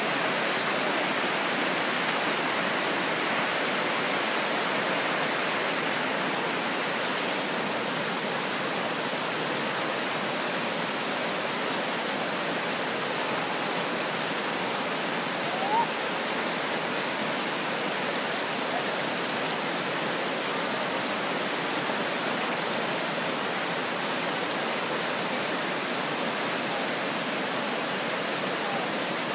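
The Ardèche river in flood, swollen by heavy rain upstream, rushing through rapids: a steady, loud whitewater rush. A brief rising whistle-like sound comes about halfway through.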